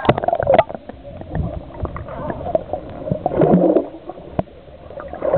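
Muffled underwater sound from a camera held under the surface of a swimming pool: gurgling bubbles and scattered clicks and knocks, with the bubbling strongest a little past halfway.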